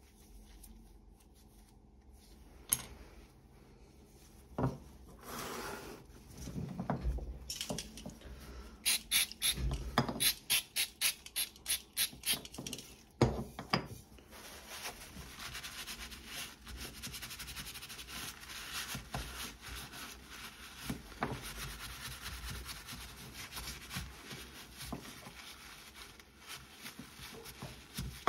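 Gloved hands working the dismantled metal secateurs against a wooden workbench: a few clicks and knocks, a quick run of scraping strokes with a sharp click at its end, then a long stretch of steady rubbing as the parts are cleaned.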